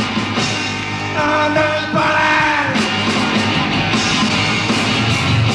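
Punk rock song: loud guitar-band music with a sung, shouting vocal.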